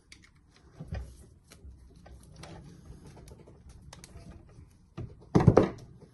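Screwdriver working the screws of a cordless circular saw's switch assembly: scattered small clicks and light scrapes of metal on screws and plastic housing, with a louder knock about five and a half seconds in.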